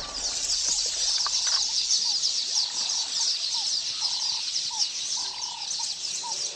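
A chorus of birds chirping: many short, quickly falling high chirps in a dense run, with a few lower whistled notes about every half second.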